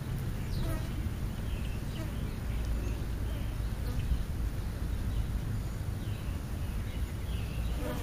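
European starlings feeding at close range, giving several short, faint chirps over a steady low hum.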